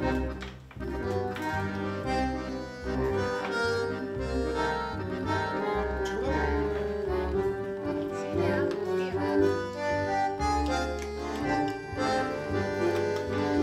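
Background music: an instrumental melody of held notes that changes every second or so.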